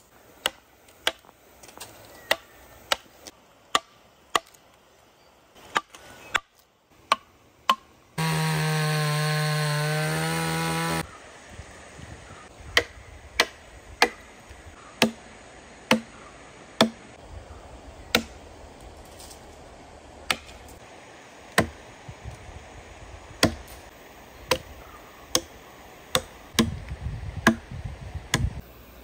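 A metal chisel driven into a teak stump by mallet blows, sharp single knocks about once a second as the wood is carved. About eight seconds in, a loud steady drone cuts in abruptly and stops about three seconds later.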